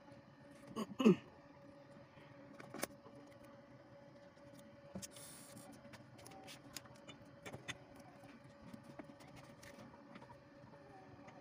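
Small clicks and rustles of hands handling a three-cell 18650 lithium-ion battery pack and bending its nickel connecting strips, with a brief squeak falling in pitch about a second in, over a faint steady hum.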